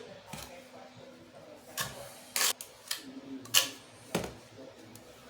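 Scattered short scrapes and taps of a metal tool spreading thin-set mortar onto the back of a tile, about five in all.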